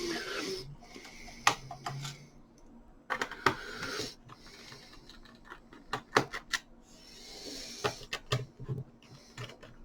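Phillips screws being taken out of a laptop's plastic bottom case: a screwdriver scraping and turning in spells, with scattered sharp clicks and taps of the screws and tool on the plastic.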